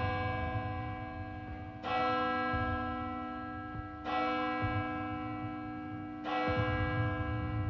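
A deep bell tolling slowly, struck three times about two seconds apart, each strike ringing on and fading, over a low rumbling drone.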